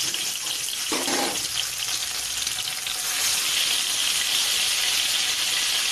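Pieces of fish frying in hot oil in a kadai, a steady sizzle.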